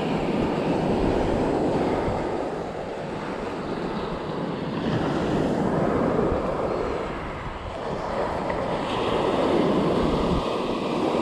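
Surf breaking on a sandy beach, the wash swelling and easing every few seconds, with wind buffeting the microphone.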